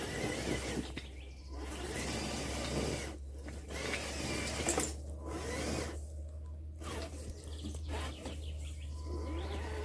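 Electric motor and gear drive of a radio-controlled scale crawler whining, rising and falling in pitch in uneven spurts as it works over stone.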